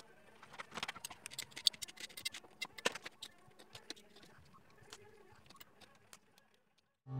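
Faint, irregular clicks and scratches of a hard clear plastic fridge bottle tray being chipped and handled, busiest in the first half and dying away toward the end; no steady motor whine of the rotary tool is heard.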